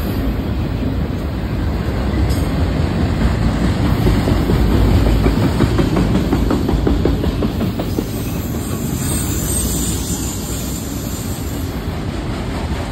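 A train rolling past: a steady rumble of wheels on rail with a rapid clickety-clack over the rail joints, swelling to its loudest about four to six seconds in.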